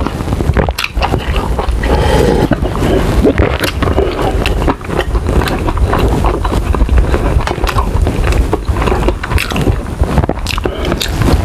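Close-miked eating sounds: slurping a sip of spicy instant noodle soup from the cup, then chewing with many wet mouth clicks, and a fork working in the noodle cup. A steady low rumble runs underneath.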